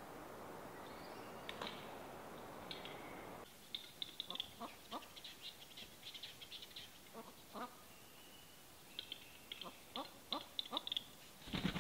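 Male western capercaillie singing their lek display song: two bouts of rapid dry clicks and popping notes, the first about four seconds in and the second about nine seconds in, with a louder burst right at the end. Before the first bout there is only a steady hiss.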